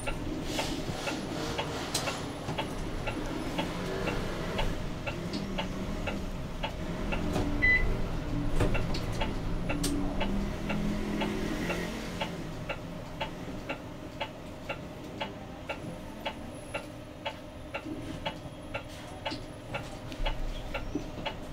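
Cabin noise of a Zhongtong LCK6113SHEVG hybrid bus under way: a low running hum and rumble. From about halfway a rapid, evenly spaced ticking comes through clearly, like the turn-signal indicator clicking. There is one short beep about eight seconds in.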